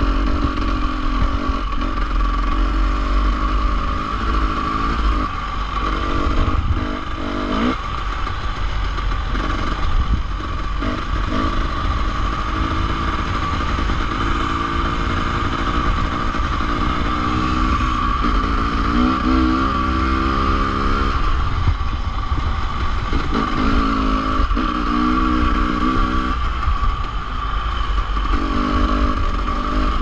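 Enduro dirt bike engine on rough single-track, revving up and dropping back again and again as the rider works the throttle, over a constant rushing noise.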